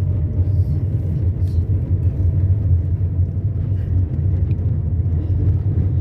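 Car driving on an unpaved dirt road, heard from inside the cabin: a steady low rumble of engine and tyres on the rough surface.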